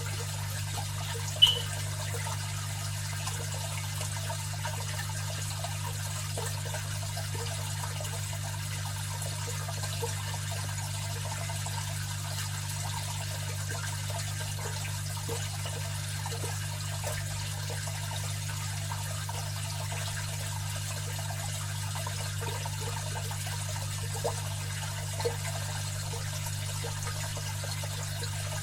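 Aquarium filter running: water trickling and splashing steadily over a low, steady hum. A sharp, louder drip sounds about a second and a half in, and two smaller ones near the end.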